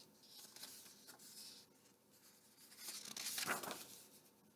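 Paper rustling as a picture book's page is turned, with a soft sweep of paper that is loudest about three and a half seconds in.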